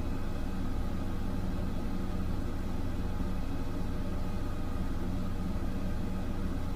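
A steady low machine hum with several steady tones in it, unchanging in level.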